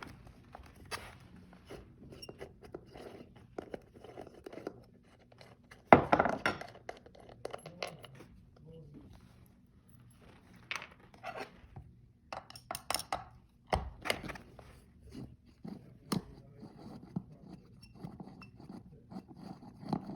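Metal hand tools and bolts clinking and clicking against the scooter's wheel hub as its three bolts are taken out. There is a loud knock about six seconds in, and clusters of clicks later on.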